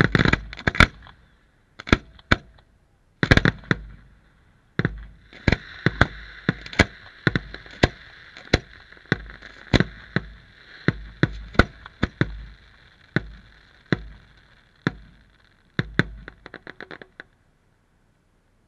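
Aerial firework shells bursting in quick succession, sharp bangs about one to two a second over a steady crackling hiss. It ends in a quick run of smaller pops and then stops suddenly.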